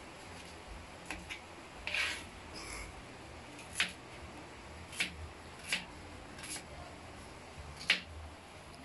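Kitchen knife chopping on a plastic cutting board: about eight single sharp knocks at irregular intervals, roughly a second apart, the last the loudest.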